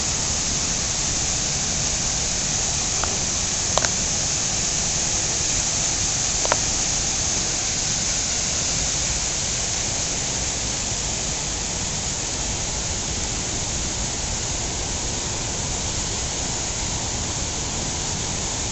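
Waterfall and river water rushing steadily, an even hiss with no break, with two faint clicks in the first seven seconds.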